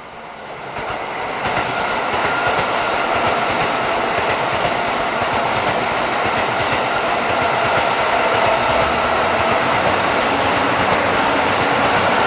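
JR Freight train passing close by: the rail noise builds over the first second and a half as it arrives, then holds steady as the wagons roll past with clicking over the rail joints and a steady high tone running through it.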